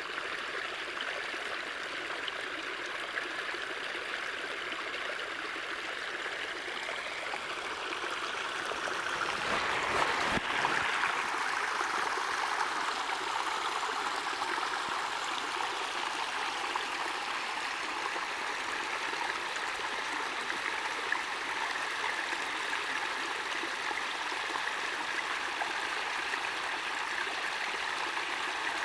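Snowmelt water running out from under a snowfield and trickling over logs: a steady running-water sound that swells for a few seconds about a third of the way in.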